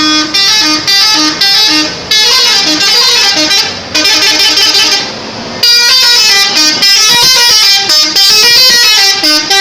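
Indonesian bus 'telolet' multi-tone horns playing a loud stepping jingle in bursts, breaking off briefly about 2 s, 4 s and 5 s in.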